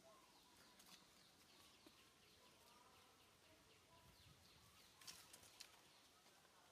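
Near silence: faint outdoor ambience with soft, short chirping calls and a few light clicks about five seconds in.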